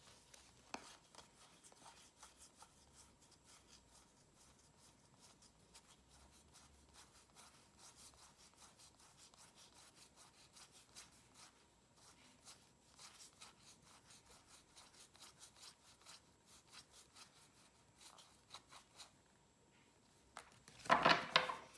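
Faint rustling and light clicking of tarot cards being leafed through by hand, with a short louder burst near the end.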